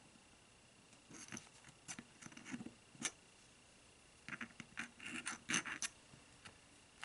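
Light clicks, taps and scratches of small parts being handled while fiber gaskets are fitted into a rifle scope's eyepiece: a few at about a second in, one sharp tap near three seconds, and a busier run from about four to six seconds.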